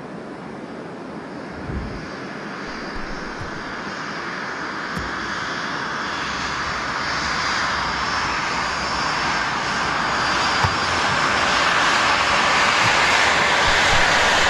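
Airliner passing overhead, its engine roar growing steadily louder and brighter as it draws nearer. A few faint thumps sound over it.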